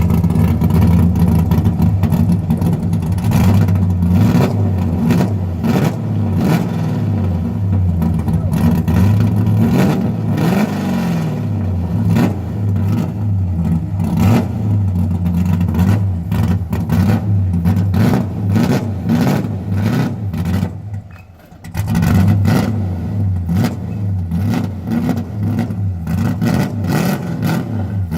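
LS V8 engine of a swapped Nissan 240SX (S14) drift car running, with a steady low drone and a pulsing beat. Its sound drops out sharply for about a second around three-quarters of the way through, then comes back.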